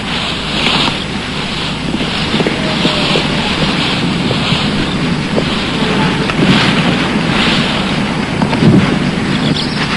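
Wind blowing in gusts, with rushing hiss that swells and falls every second or so over a low rumble.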